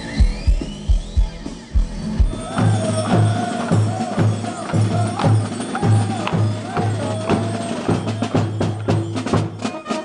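Live band music with electric guitar and heavy drum-kit hits for the first two seconds. Then a street brass band: a low brass bass line pulsing about twice a second under trumpet notes, with a clatter of sharp percussion strokes near the end.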